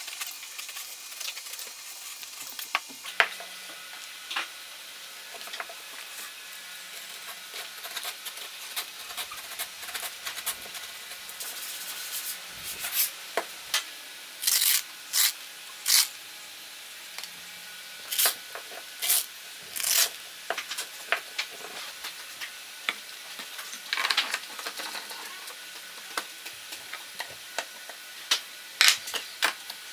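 Hand work on a sandpaper disc: short scraping strokes of a utility knife trimming sandpaper around a round plywood backing, with scattered clicks and knocks as the disc is handled and then screwed onto a motor shaft. Several brief hissy scrapes come close together in the middle.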